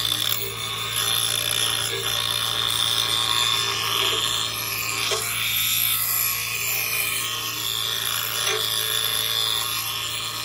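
Small electric grinder running with a steady motor hum while a steel garden-tool blade is held against the spinning wheel, giving a rasping grind that swells and fades as the blade is worked along to sharpen its edge.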